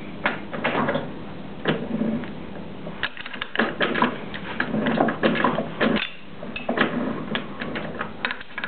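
Irregular metallic clicks and knocks, some in quick runs, as a lathe chuck is turned by hand on its spindle.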